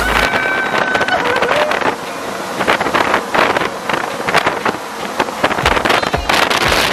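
Strong wind from a typhoon-simulator booth's fans blasting past the microphone: a loud, continuous rush broken by many sharp crackling gusts of buffeting.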